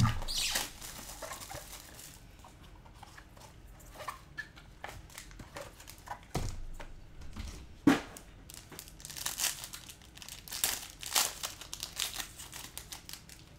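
Trading-card packaging being opened and handled: wrapper crinkling and tearing in short scattered rustles, with two soft knocks and a denser run of crinkling near the end.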